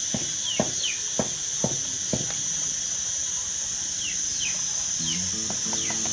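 Steady high-pitched insect drone, with a few short falling chirps and several sharp clicks in the first half. Background music comes in about five seconds in.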